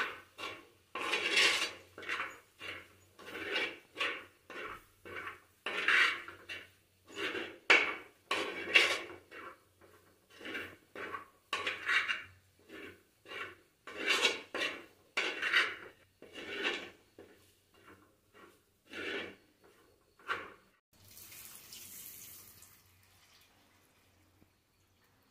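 Steel spoon scraping and stirring thick chilli masala in a clay pot, in quick repeated strokes about one to two a second. Near the end, hot water is poured into the pot for about two seconds.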